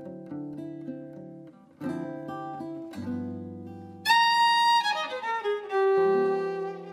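Gypsy jazz (jazz manouche) instrumental. Acoustic guitar chords open it, and about four seconds in a violin comes in loud with long held notes, sliding down in pitch before settling on a lower note.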